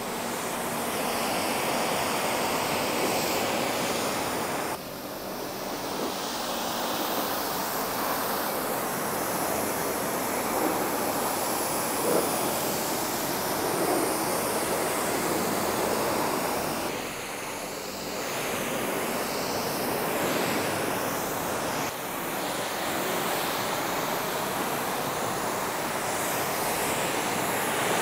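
Pressure washer jet spraying water onto a car's body, rinsing off the soap foam: a steady hiss of spray on the panels that shifts abruptly a few times.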